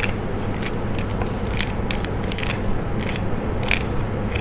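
A utensil scraping and clicking irregularly against a pan as peanuts and spices are stirred over the heat, over a steady low background hum.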